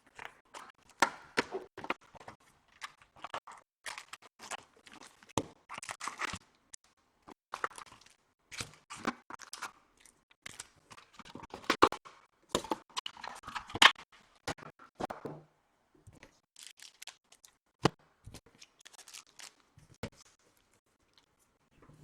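Wrapping on a Topps Chrome 2014 trading-card hobby box being torn and crinkled open, and the foil card packs inside rustling and tapping as they are handled. Irregular crinkles and sharp taps, with short pauses between them.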